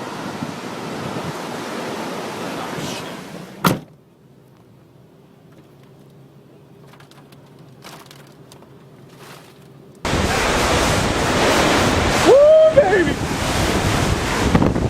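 Strong wind buffeting the microphone during tornado filming. It cuts off with a sharp click about four seconds in, leaving a few seconds of quiet low hum, then loud wind noise comes back suddenly about ten seconds in, with a brief shout in it.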